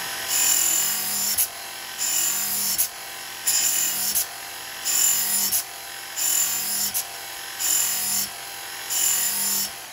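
Work Sharp MK II belt sharpener with an 80-grit belt running steadily and grinding the steel edge of a roofing hatchet in about seven passes, each pass a louder grinding stretch of under a second. This is the stage of sharpening that raises a burr on the edge.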